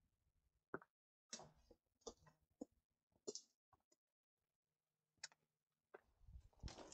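Faint, irregular footsteps scuffing and crunching on a stony, gravelly path, getting louder near the end.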